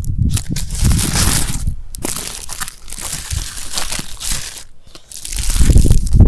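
Wind buffeting the microphone in gusts: a rough, noisy rumble that rises and falls and swells again near the end.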